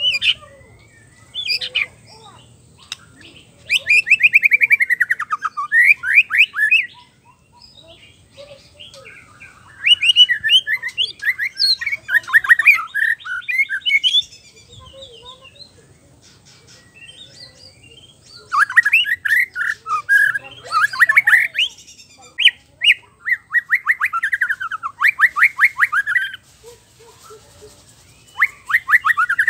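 White-rumped shama singing: several long phrases of rapid, fast-repeated whistled notes and downward-sweeping slurs, each a few seconds long, with short pauses between them.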